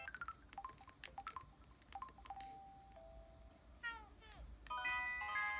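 Samsung Anycall SCH-W200 phone playing its built-in electronic effect tones: a string of short chirps sliding in pitch, a held beep a little past the middle, a quick run of falling sweeps, then a bright chord of several tones held near the end.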